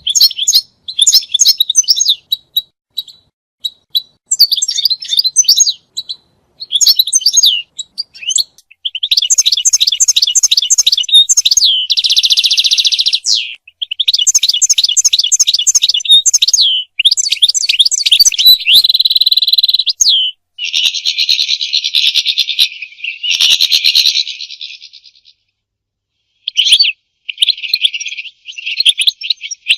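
European goldfinch singing: rapid, high-pitched twittering phrases mixed with longer buzzy trills, with a short pause near the end.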